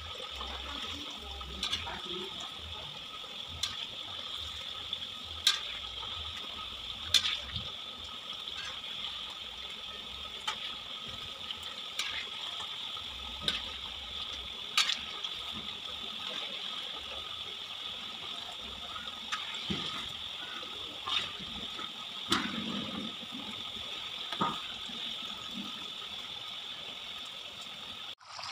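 Hot oil sizzling in a steady hiss as diced vegetables deep-fry in a wok, with occasional sharp taps of a metal spatula against the wok.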